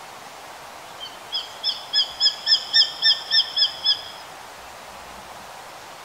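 Japanese sparrowhawk (Accipiter gularis) calling: a rapid series of about a dozen shrill, sharp notes, about three and a half a second, building in loudness and then easing, lasting about three seconds, over a steady background hiss.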